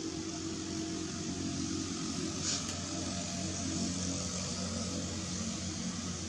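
Steady mechanical hum with an even hiss over it, and one faint short click about two and a half seconds in.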